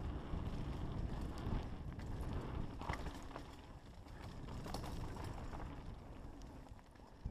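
Mountain bike riding fast down a dirt trail: wind buffeting the microphone in a steady low rumble, with the tyres on the dirt and scattered clicks and knocks as the bike rattles over bumps.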